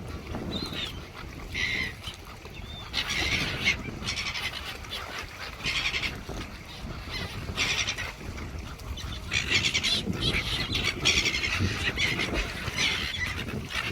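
Birds calling: a string of short, raspy calls, each under a second long, repeating on and off over a low background rumble.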